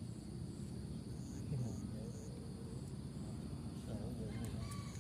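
Insects trilling steadily, one giving short high chirps about twice a second, over indistinct voices talking in the background.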